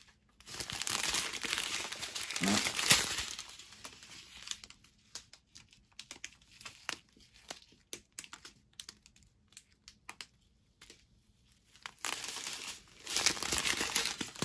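Strip of thin plastic bags of diamond painting drills crinkling as it is handled. The rustle is loudest in the first few seconds and again near the end, with scattered light crackles in between.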